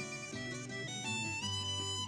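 Instrumental music: a melody of held notes over a steady bass line, with no singing.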